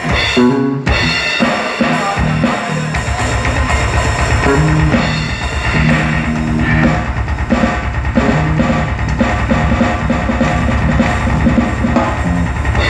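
Drum kit played hard and fast, with a rapid, steady bass-drum pulse setting in about three seconds in under snare and cymbal hits. Pitched notes run alongside the drums.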